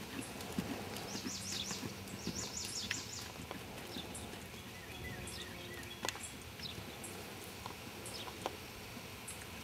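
A half-Arab horse's hooves thudding dully on arena sand under a rider. A bird sings a quick run of high chirps a second or two in, and short high chirps come now and then after that.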